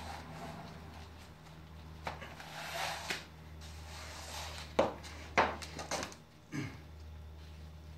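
Gloved hands rubbing and pressing glued vinyl-coated mesh fabric down onto plywood, a soft swishing, with a few sharp scuffs and knocks about halfway through.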